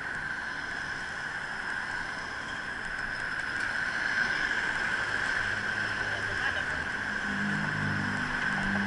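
City street traffic heard while cycling alongside it: a steady rush of wind and road noise, with vehicle engines humming past and a low engine hum growing stronger in the second half.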